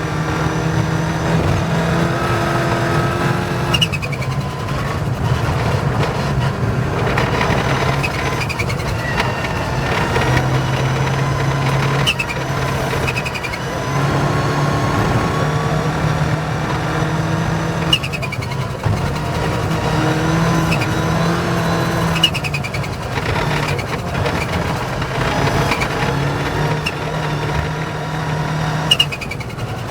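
Rally car engine running as the car drives a stage; its pitch steps up and down every few seconds. There are a few sharp knocks in the second half.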